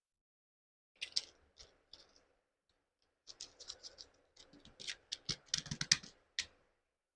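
Quick runs of small clicks and scratches, like small parts and tools being handled. A short cluster comes about a second in, then a denser run of clicks, loudest near the end.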